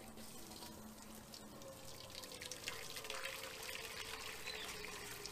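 Water poured in a steady stream from an electric kettle into a smoker's water pan, splashing as the pan fills, growing slightly louder as it goes.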